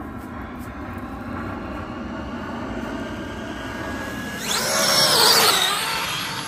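Electric RC car speeding along asphalt: a faint motor whine draws closer, then about four and a half seconds in the car's motor and tyres swell into a loud high whine as it passes close by, the pitch dropping as it goes away.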